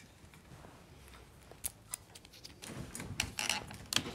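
Handling noise from small equipment being moved and adjusted: a few isolated light clicks, then a quick run of clicks and knocks in the last second and a half.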